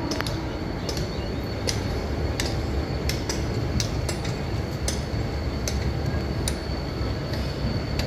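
Passenger train behind a WDP-4D diesel locomotive running, heard from an open coach door: a steady low rumble with irregular clicks of wheels over rail joints and a faint high steady whine.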